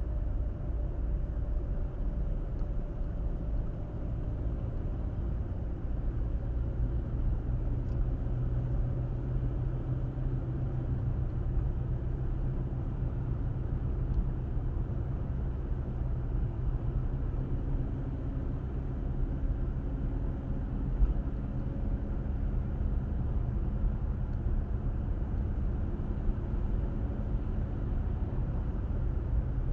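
Car driving along at a steady pace: low road and tyre rumble under a faint engine hum whose pitch shifts now and then, with one small bump about two-thirds of the way through.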